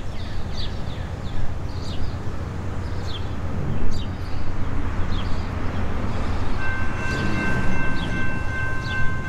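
Air horn of a Norfolk Southern GE D9-40CW diesel locomotive sounding a steady multi-note chord, starting about six and a half seconds in as the train approaches. Before it, birds chirp over a low rumble.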